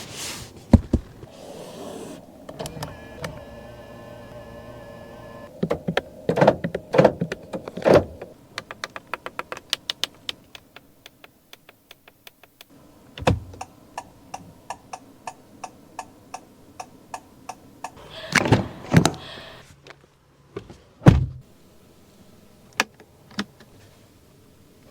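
Honda Inspire's cabin controls being worked: a short electric motor whine, then a long run of sharp clicks and several heavier thunks.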